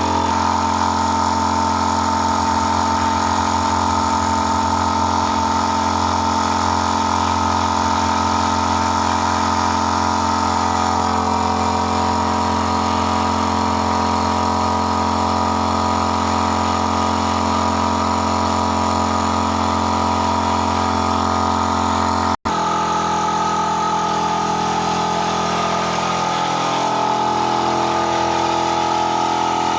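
A motor running steadily with a constant hum. It breaks off for an instant about two-thirds of the way through, then runs on with a slightly changed tone.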